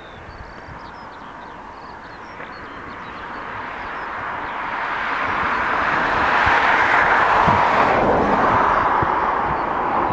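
Jet airliner passing close by, its engine noise swelling to a peak about seven seconds in and then easing off slightly. Faint bird chirps sound in the first couple of seconds.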